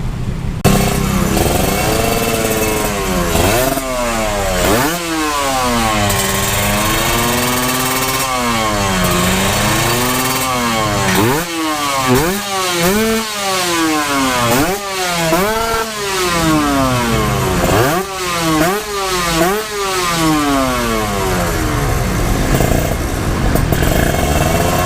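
Two-stroke motorcycle engine, a Kawasaki Ninja 150 fitted with a new handmade exhaust, revved over and over while it is being tuned; each blip rises quickly and falls back to idle.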